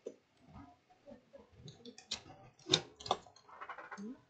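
A few faint, scattered clicks and taps, then a quick run of small ticks near the end, from a laptop motherboard being handled and shifted on the bench under a microscope.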